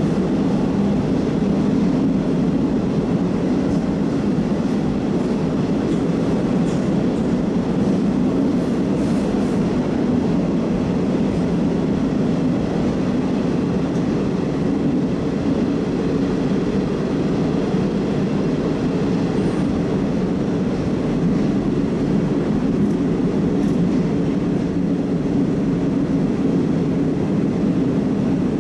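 Moscow Metro 81-760/761 'Oka' train running at steady speed, a continuous rumble of wheels on rail with no breaks.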